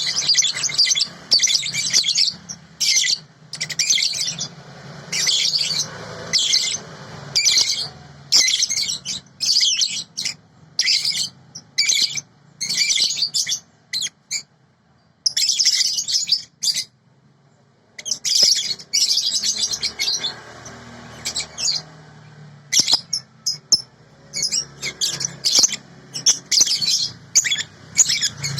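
Small songbird singing in rapid runs of high chirps and trills, broken by short pauses, with two longer gaps about halfway through. This is a tutor song recording played for young birds to learn from. A faint low hum runs underneath.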